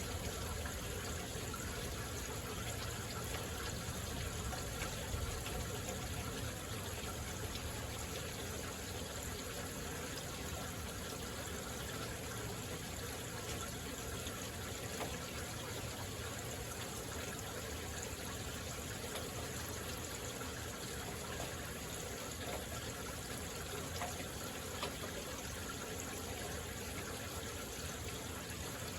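Heavy rain falling steadily, an even hiss of water with no thunder.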